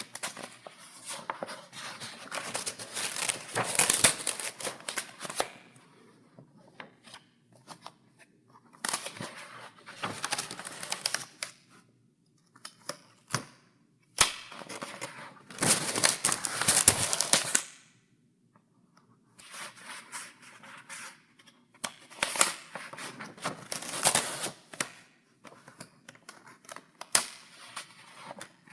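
Paper pages in a file being turned: a series of dry rustling sweeps, each lasting one to a few seconds, with short pauses between and a few sharp snaps of paper.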